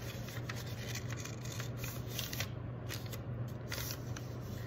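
A sheet of paper rustling and crackling as it is folded and creased by hand into a paper airplane, in short irregular crinkles over a steady low hum.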